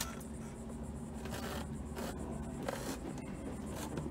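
Faint, irregular rubbing and scraping strokes of a hand wiping the windshield sun shade with a cleaning wipe and cloth.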